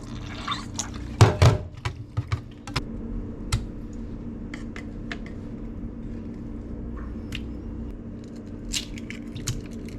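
Kitchen handling sounds during food preparation: scattered light knocks and clicks, with two louder thumps about a second in, over a steady low hum.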